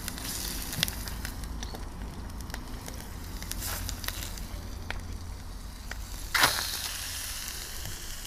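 Chicken pieces frying in hot oil in a skillet: a steady sizzling hiss with scattered small pops, and one louder short burst about six seconds in.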